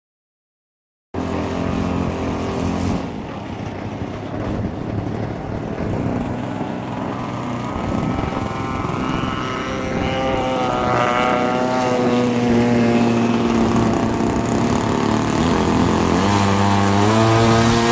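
Radio-controlled Extra 330L aerobatic plane flying, its motor and propeller droning. The pitch rises and falls with throttle changes and passes, with a swell and fall about halfway through, after about a second of silence at the start.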